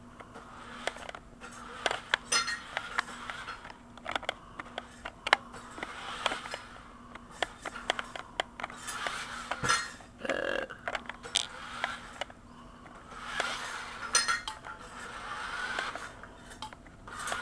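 A small toy remote-control car driving in short bursts on a hard surface: brief whirring spurts from its motor amid many clicks, knocks and scrapes of its plastic body and wheels.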